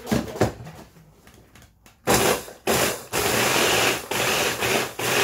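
A couple of clicks as the motor unit of a HOMEASY stainless-steel electric food chopper is seated on its bowl. About two seconds in the motor starts and runs in pulses of about a second with short breaks, chopping biscuits into crumbs.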